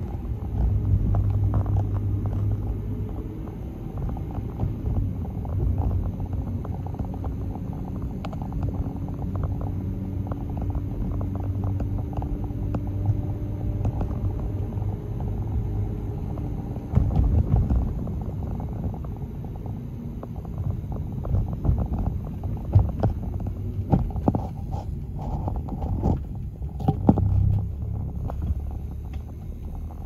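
Road noise heard from inside a moving car: a steady low rumble of engine and tyres, with a few short knocks and bumps in the later part.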